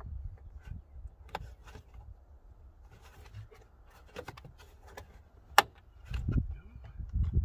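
Hands working a small plastic electronics module and its wiring-harness connectors: scattered light plastic clicks and rubbing, with one sharp click about five and a half seconds in, and low rumbling handling noise near the end.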